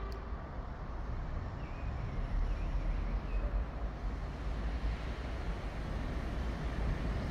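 Steady rumble of traffic on the overpass, a continuous noisy drone with a strong low end.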